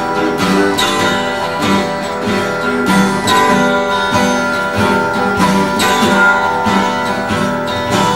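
Acoustic guitar strumming a steady instrumental break between verses of a folk song, with no singing.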